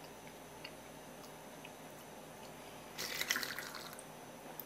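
A brief splash of liquid being poured, starting suddenly about three seconds in and tailing off within a second.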